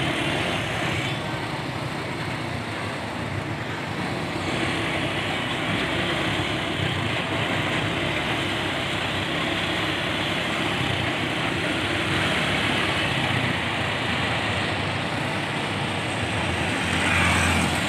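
Ballast hopper wagons rolling past on rails in a steady rumble of wheels on track. Near the end the CC206 diesel-electric locomotive's engine comes up louder as it draws level.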